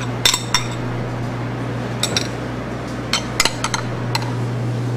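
Metal spoon clinking against a glass bowl while paste and egg yolk are scraped and mixed: about ten light, scattered clinks over a steady low hum.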